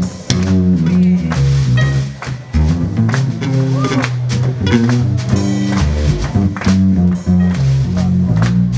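Live blues band playing an instrumental passage. A digital piano plays over an upright double bass plucking a moving bass line, with drums keeping time.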